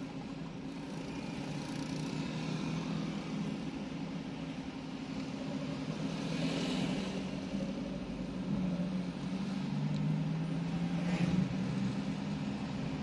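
Vehicle engines in slow traffic, heard from inside a car cabin: a steady engine hum whose pitch rises twice in the second half as the traffic moves off. Near the end there is a brief swell of noise as a motorcycle passes close by.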